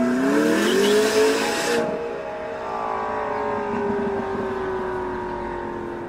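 McLaren 650S twin-turbo V8 with a titanium aftermarket exhaust revving hard as the car pulls away, its note rising steeply, under a loud rushing noise that stops suddenly about two seconds in. The engine then holds a long note that slowly drops in pitch and grows quieter as the car moves off.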